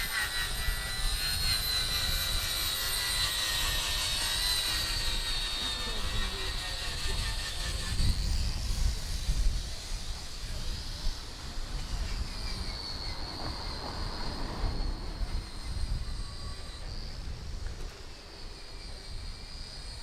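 A steady high mechanical whine of several tones, slowly drifting in pitch over a low rumble, easing off about twelve seconds in: a passing engine, such as an aircraft overhead.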